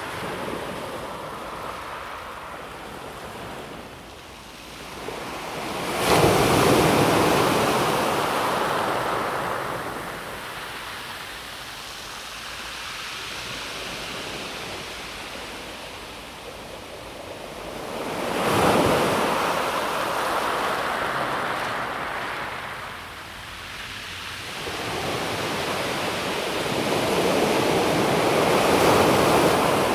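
Calm sea waves breaking on a pebble beach and washing back. There are three surges: a sharp one about six seconds in, another a little past the middle, and a slower swell that builds near the end.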